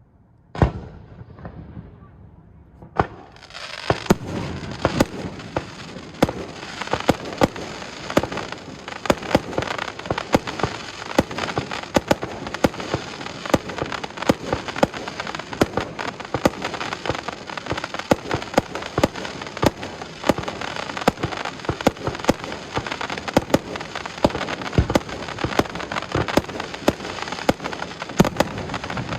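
Fireworks going off: a loud bang shortly after the start and another about three seconds in, then from about four seconds on a dense, continuous crackle with rapid sharp pops, several a second, over a steady hiss.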